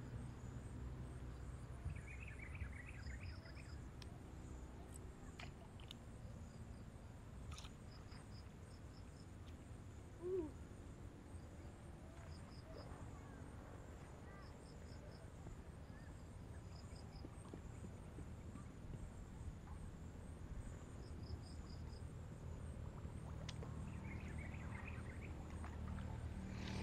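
Quiet open-air ambience by a pond: a low steady rumble with short high chirping calls coming in small groups every few seconds, and a few faint clicks.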